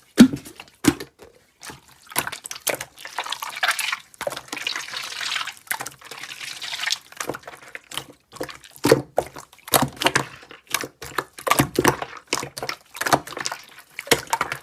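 Slime being squished and poked by hand, making irregular wet clicks and pops, with a denser squelching stretch about four to seven seconds in.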